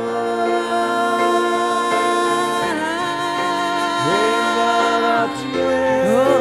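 Two women singing long held notes over grand piano chords in a slow worship song, their voices sliding up into new notes twice.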